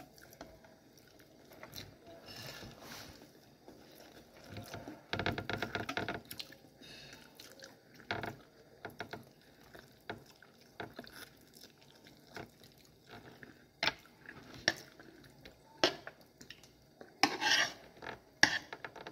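Close-up eating sounds of a person eating by hand: chewing and mouth noises with scattered sharp clicks and scrapes. About five seconds in there is a second-long crackly burst, and near the end a cluster of louder clicks.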